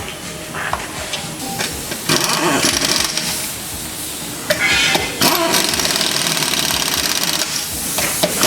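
Impact wrench hammering in bursts while tightening a shock absorber mounting bolt: a short run about two seconds in, a brief burst, then a longer run from about halfway through.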